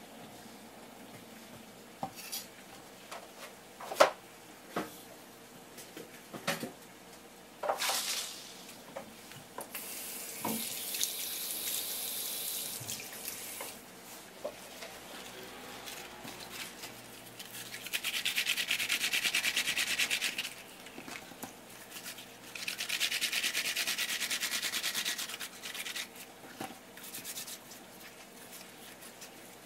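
Food prep on a wooden cutting board: a few light knocks of things being picked up and set down, then two bursts of brisk scrubbing of a few seconds each, made by hands rubbing on the board.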